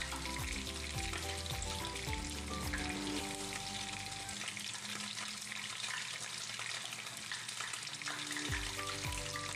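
Two whole tilapia pan-frying in hot oil in a nonstick frying pan, sizzling steadily. Background music with a beat plays over it, dropping out for about four seconds in the middle.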